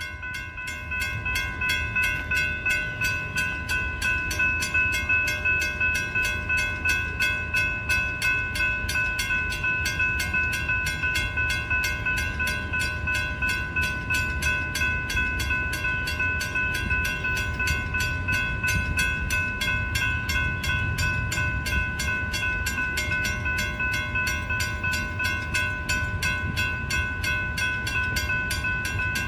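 Railroad grade-crossing warning bell ringing in fast, even strokes with the gates down, signalling an approaching train.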